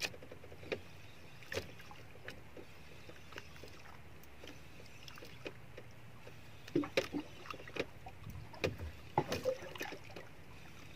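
Scattered irregular clicks and knocks from a small wooden outrigger boat and light fishing tackle, heard over a steady low wash of sea and wind, while a fish is played on a hard-bent spinning rod.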